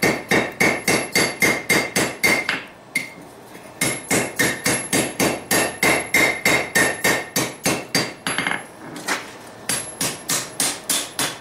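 Hand hammer striking a red-hot railroad spike on an anvil in quick, even blows, about four a second, each with a short metallic ring, as the smith evens out the spike's thickness. The hammering pauses for about a second roughly three seconds in and eases off briefly about eight seconds in.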